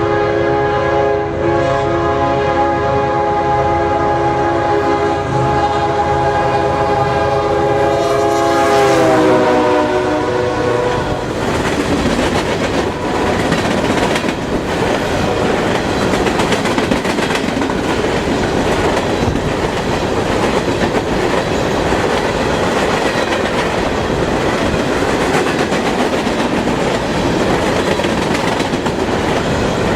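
CSX freight locomotive's air horn sounding a long chord. About nine seconds in its pitch drops as the locomotive passes, and the horn stops. The freight cars then roll past with steady wheel-on-rail noise.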